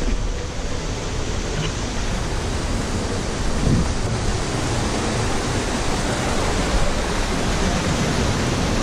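Steady rushing of a rocky mountain stream and its small cascades, with a low rumble on the microphone.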